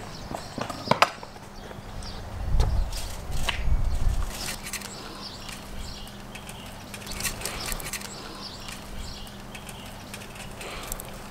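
A few sharp taps of a knife on a wooden cutting board about a second in, then a dull low rumble. After that comes a light crinkling rustle of aluminium foil and fresh dill as herb sprigs are tucked around the trout on a foil-lined tray.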